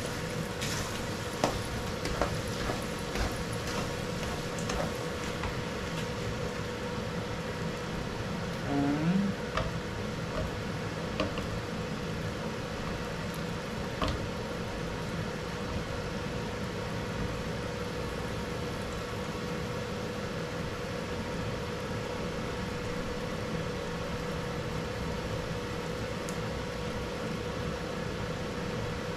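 Glutinous rice being stirred into a caramelized coconut-milk and sugar mixture in a hot pan for biko: a steady sizzling hiss over a steady hum, with a few sharp spoon knocks against the pan in the first few seconds and one more near the middle.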